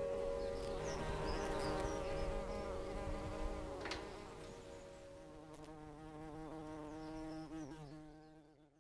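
Bees buzzing as they fly about, their pitch wavering up and down, fading out near the end.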